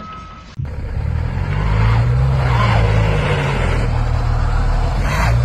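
A large engine running with a low, steady drone that wavers slightly in pitch, cutting in abruptly about half a second in.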